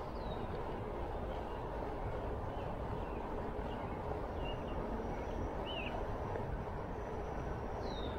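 Steady wind and road rumble on the microphone of a rider moving along a paved road, with birds chirping in short calls several times over it.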